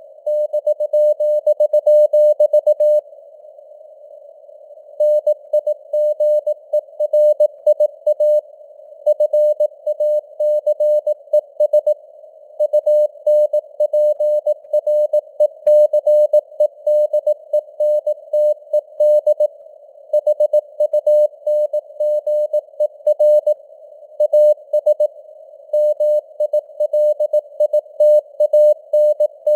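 Computer-generated Morse code (CW) sent at 18 words per minute: a single steady tone keyed on and off in dots and dashes, with short breaks between words. It sits in a narrow band of simulated radio hiss, and its strength rises and falls as in radio fading (QSB).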